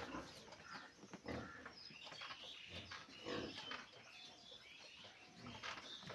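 Pigs grunting now and then, with small birds chirping throughout.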